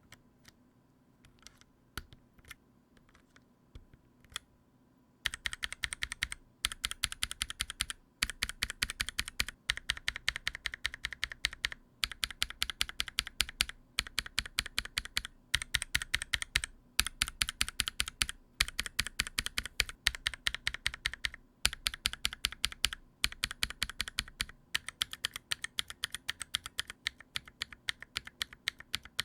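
Mechanical keyboard with Holy Yok Polar Panda tactile switches, a NovelKeys NK65 Entry Edition, being key-spammed. A few single keystrokes come first, then from about five seconds in there are rapid bursts of many keys clacking, each about a second long, with short pauses between.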